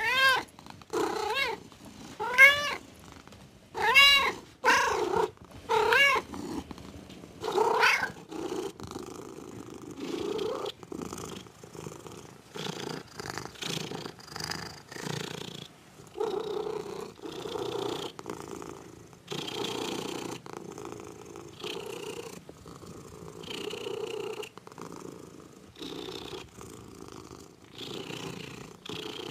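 Domestic cat meowing about seven times in short, rising-and-falling calls. From about eight seconds in it switches to steady purring, a low rumble that swells and fades with each breath.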